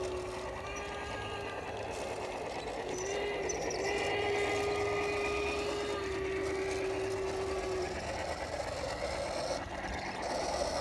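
Model Bachmann Shay locomotive's onboard sound-system whistle, a held steam-whistle tone that wavers slightly and cuts off about eight seconds in, over the running noise of the train. The whistle goes off by itself from a voltage drop on the track far from the feeders.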